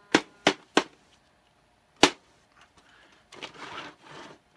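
Sharp knocks on the plastic dome of a large interactive R2-D2 toy robot: three quick ones, then a fourth about a second later, followed by a second of soft rustling handling noise.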